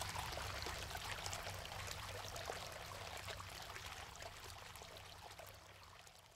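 Water from two rippled ceramic bubbler fountains, trickling and splashing steadily down their sides onto rocks, fading out gradually.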